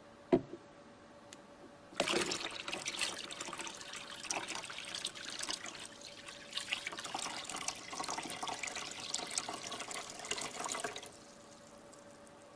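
Water poured in a stream into a tank of water, splashing and gurgling irregularly for about nine seconds, then stopping abruptly. A single short knock comes just before the pouring starts.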